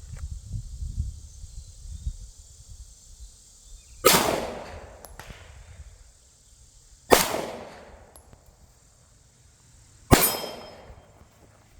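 Three handgun shots spaced about three seconds apart, each ringing out with a short decaying echo. A low rumble comes before the first shot.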